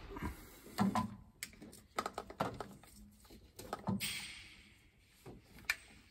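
Scattered clicks and light knocks of a strap-type oil filter wrench being fitted around a car's spin-on oil filter, with a brief rustle about four seconds in.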